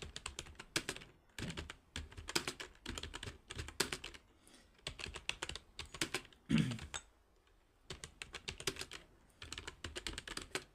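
Computer keyboard being typed on in quick bursts of keystrokes with short pauses between them, a touch-typing drill on the E, I and home-row keys with the thumb on the space bar. About two-thirds of the way in comes one brief low sound that falls in pitch, the loudest moment.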